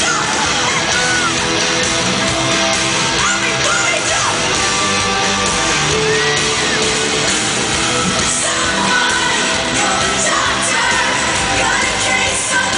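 Live pop concert: a female singer with a full band playing loud, with yells and whoops from the crowd over the music.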